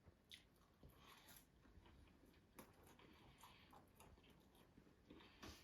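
Faint chewing and biting of crisp bolani, a fried flatbread filled with leeks: scattered soft clicks and crunches, with a slightly stronger bite about two and a half seconds in and another near the end.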